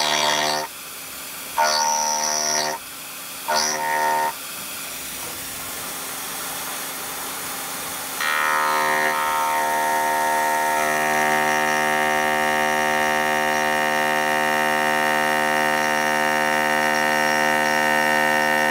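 A 12 mm single-insert indexable endmill spinning at 4600 rpm rough-cutting St37 steel. A few short loud bursts of cutting come in the first four seconds as the insert goes in and out of the metal, then a quieter stretch. From about eight seconds in, a continuous loud cut with a steady ringing whine.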